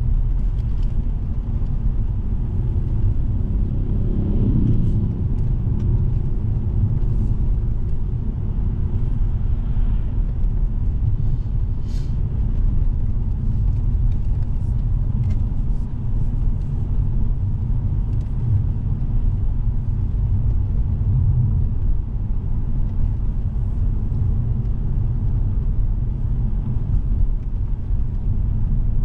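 Cabin noise of a 2006 BMW 630i on the move: a steady low rumble of tyres and engine. The note of its straight-six rises briefly about four seconds in, with a few faint clicks now and then.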